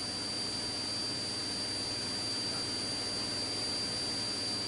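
Steady hiss with a thin, constant high-pitched tone: the background noise of a police helicopter's radio audio between transmissions.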